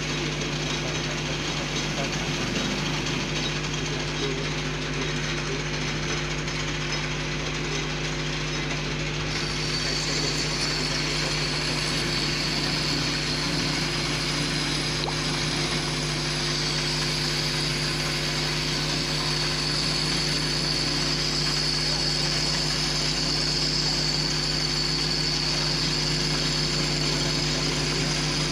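Lathe running steadily while turning a steel shaft, with a constant motor hum. About nine seconds in, a high, steady whine joins and holds.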